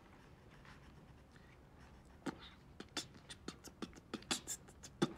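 Beatboxing starts about two seconds in: quiet mouth-made kick and snare hits in a steady beat, about three to four a second, growing louder and busier.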